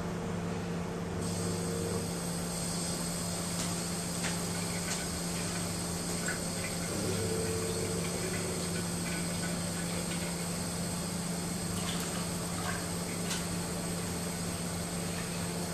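Kitchen mixer tap opened and water running in a thin stream into a stainless-steel sink: a steady splashing hiss that starts about a second in. A steady low hum runs underneath.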